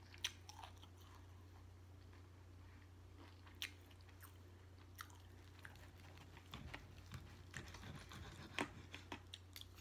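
Close-miked chewing with occasional sharp wet mouth clicks, over a faint steady low hum. In the last few seconds a knife and fork scrape and cut food on a ceramic plate.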